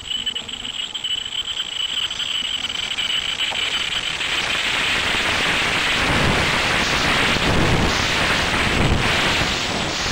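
Electric multiple-unit commuter train approaching and running past along the platform. Its wheel, rail and air rush builds over the first few seconds and stays loud, with a deep rumble, as the cars go by.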